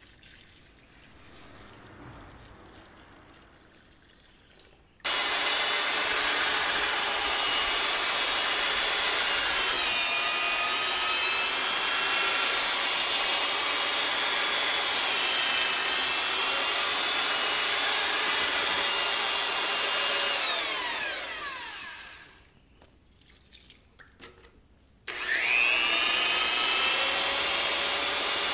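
Handheld electric paddle mixer whirring as it stirs mortar in a bucket. It switches on sharply about five seconds in and runs steadily with a whining motor tone, winds down with a falling whine around twenty-one seconds, then starts again with a rising whine near twenty-five seconds.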